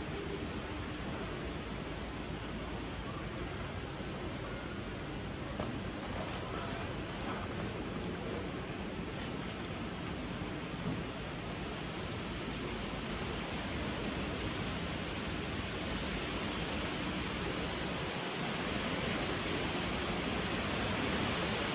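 A high, thin insect drone holding one pitch, creeping slightly higher, over a steady hiss that slowly grows louder.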